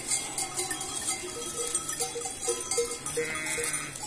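Bells hung on a flock of sheep and goats clinking irregularly as the animals move, with a short bleat about three seconds in.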